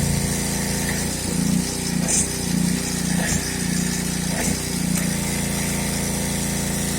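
Karcher 3000 PSI pressure washer's 6-horsepower engine running steadily under load, its pump pushing water at about 1,400 PSI with the trigger pulled. The drone wavers slightly for a few seconds in the middle.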